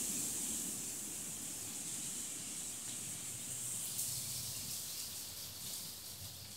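Steady outdoor hiss, slowly fading, with a faint click about four seconds in.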